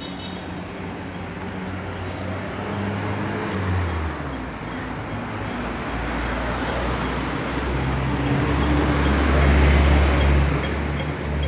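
Road traffic passing close by: the low drone of vehicle engines grows into a heavy engine roar that is loudest about ten seconds in, as a large vehicle goes past. Faint rapid ticking comes in near the end.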